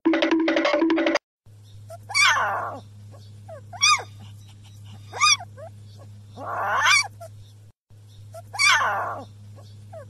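Music with a steady beat, cut off about a second in. A black-and-tan puppy then gives repeated high-pitched whining cries and short yelps, roughly one every one to two seconds, over a low steady hum.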